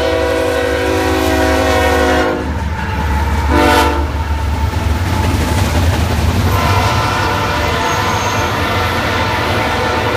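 CSX GE diesel-electric locomotives (ES44AC-H and ET44AH) passing close, sounding the air horn: a long blast that cuts off about two seconds in, then a short blast about a second later. A heavy low engine rumble and the rolling of the intermodal cars run underneath.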